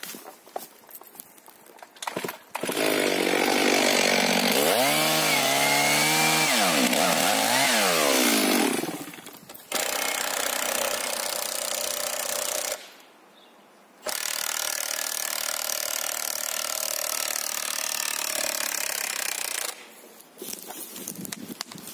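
STIHL MS 500i fuel-injected two-stroke chainsaw cutting the back cut of a standing spruce in three runs starting about two and a half seconds in. In the first run its pitch dips and recovers as the chain loads in the wood. The last two runs follow short breaks, and the sawing stops about two seconds before the end.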